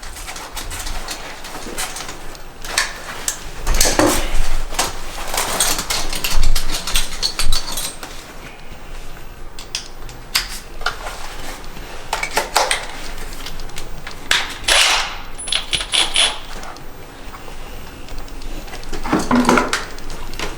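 Metal clinking, clattering and scraping as a screw and right-angle drill attachment are worked against the sheet-metal exhaust duct and fan outlet, with a short burst of the cordless drill's motor whir about three-quarters of the way through.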